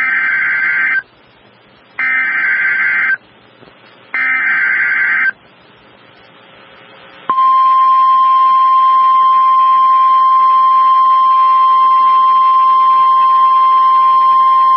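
Emergency Alert System signal as broadcast on NOAA Weather Radio. Three SAME header data bursts, each about a second long with a second's gap between them, encode a severe thunderstorm warning. About seven seconds in, the steady 1050 Hz weather-radio alert tone starts and holds.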